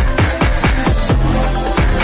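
Background music with a fast, steady drum beat, about four beats a second, over a sustained bass line.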